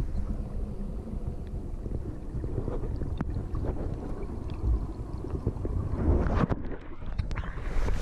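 Muffled low rushing and gurgling of a mountain stream heard through a camera held underwater, with a few sharp knocks. Near the end the camera comes out of the water and the stream's open-air rush, a brighter even hiss, takes over.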